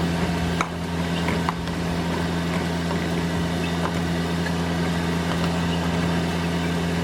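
Steady low machine hum, unchanging throughout, with a few faint clicks.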